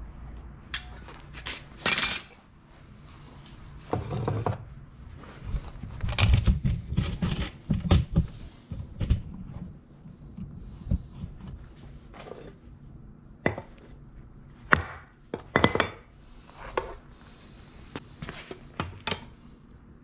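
Steel tongs and a crucible clanking and clinking against the furnace rim, firebricks and an ingot mold while molten copper is lifted out and poured into the mold: a few sharp knocks at first, a clattering run in the middle, then more single knocks, over a low steady rumble.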